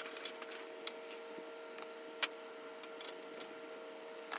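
Faint scattered clicks and taps of range gear being handled, with a few sharper single clicks, over a faint steady hum.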